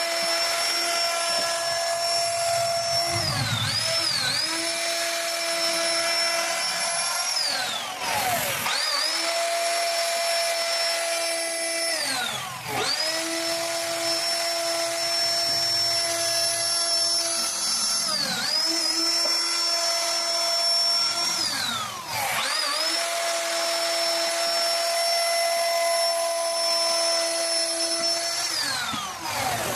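CNC router spindle cutting wood: a steady high-pitched whine that drops in pitch and climbs back up about five times.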